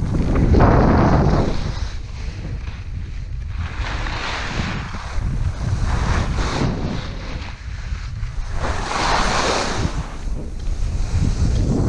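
Wind rushing over the microphone of a skier's camera, mixed with the skis' edges scraping over firm, chopped-up snow. The noise swells and fades three times, with the turns.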